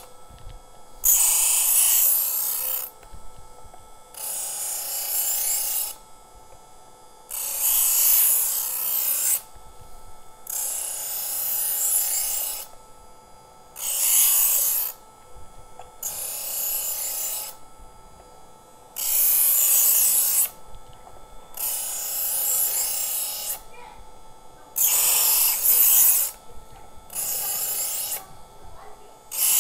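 Work Sharp E2 electric knife sharpener running with a faint steady whine while a steel kitchen knife blade is drawn through its sanding-disc slot again and again, each pass a rasping grind of one to two seconds, about a dozen passes in all. This is the abrasive sharpening stage on a dull, dinged blade, repeated until the machine stops spinning.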